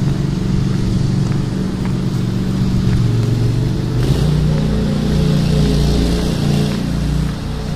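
A motor engine running steadily, with a heavier low rumble from about four seconds in.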